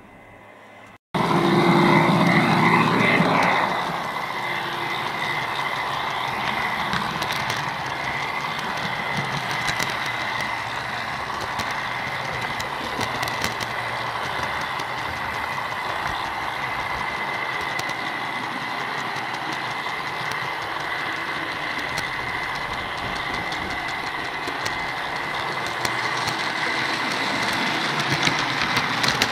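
Running noise of an OO gauge model train heard from on board: wheels rolling over the track with scattered clicks and a steady high whine. It cuts in suddenly about a second in and is loudest for the first few seconds.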